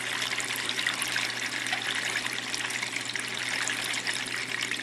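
Water trickling and splashing steadily through a newly filled custom PC water-cooling loop as its pump circulates it, with air still being worked out of the loop. A low steady hum sits underneath.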